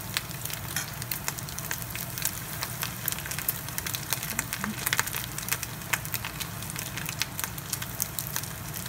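Okra and shrimp balls deep-frying in hot oil in a pan: a steady sizzle packed with quick crackles and pops.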